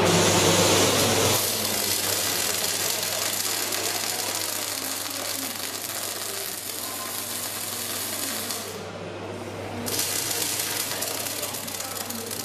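Robotic arc welder at work: the welding arc crackles steadily over a low hum. The crackle drops away for about a second near the end and then starts again.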